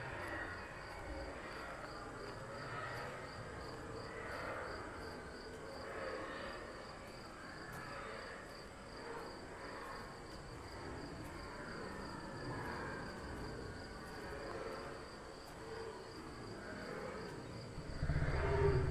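Night ambience of crickets chirping in a steady, even pulse, with faint wavering hoots like an owl's. A louder low rumble sets in near the end.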